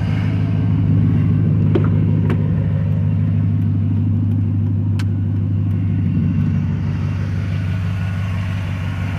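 Engine idling steadily with a low, even hum, and a few light clicks about two seconds and five seconds in.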